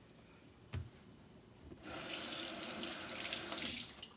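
Kitchen faucet turned on and running into the sink for about two seconds while a potato is rinsed under it, then shut off. A soft knock comes shortly before the water starts.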